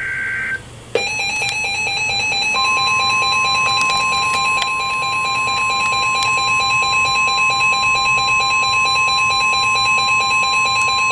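Tail of a SAME digital header burst, then a weather radio's rapid electronic alert beeping. About two and a half seconds in, the steady NOAA Weather Radio 1050 Hz warning alarm tone joins it and holds for about nine seconds, signalling a new warning about to be broadcast.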